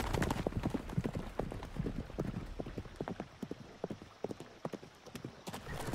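Hoofbeats of a horse galloping on a dry dirt track, a quick uneven run of thuds that grows fainter as the horse moves away.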